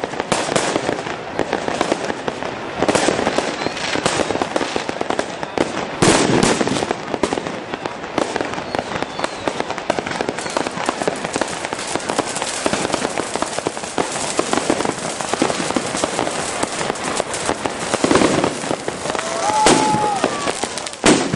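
Fireworks going off without pause: a dense run of bangs and crackles, with louder bursts every few seconds.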